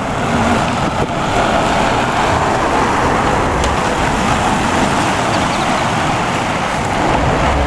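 MAN concrete mixer truck driving past on wet pavement: steady engine rumble with road noise.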